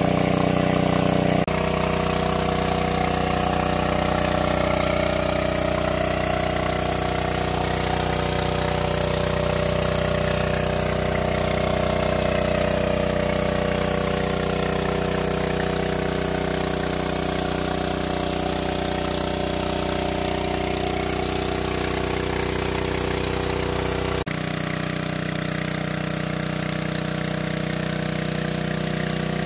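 Engine of a large water pump running steadily, with an even, low pulsing throb.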